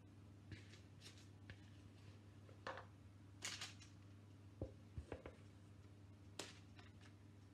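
Faint, scattered scrapes and taps of a spatula against a mixing bowl as cake batter is scraped out, about one every second, over a low steady hum.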